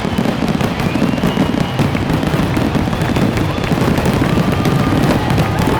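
Fireworks going off in a dense, continuous barrage of booms and crackling, with a few short whistle-like tones over the explosions.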